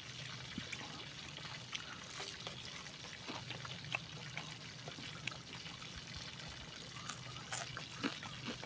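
Water trickling steadily, with faint scattered clicks and crackles over it.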